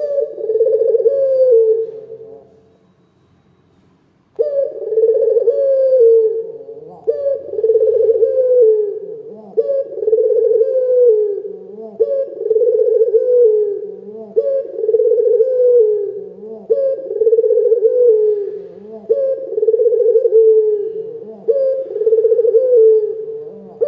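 Barbary dove (puter) cooing over and over, a low rolling coo repeated about every two seconds. The calls stop for a couple of seconds near the start, then resume abruptly and keep going.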